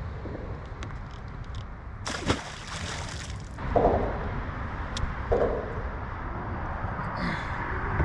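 Water splashing and sloshing, with a louder burst of splashing about two seconds in, over a steady low rumble.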